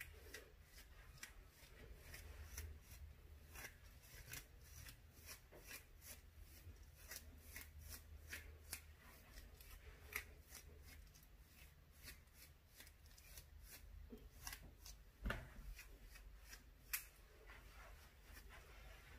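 Faint, quick scratchy strokes of a plastic afro pick raking through short, coily hair, several a second, with a few sharper clicks.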